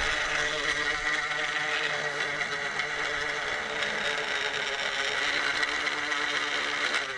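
Small reel on a homemade ice-fishing rod spinning freely as the weighted line pays out down the hole, a steady whirr. It stops suddenly near the end, when the sinker reaches bottom.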